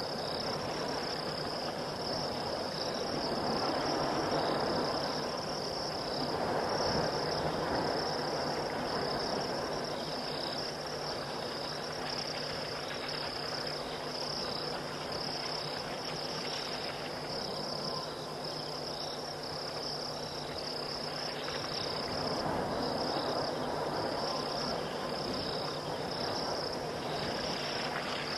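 Night-time chorus of crickets trilling steadily in a high, slightly pulsing band, with a broad lower rushing sound that swells up a few seconds in and again near the end.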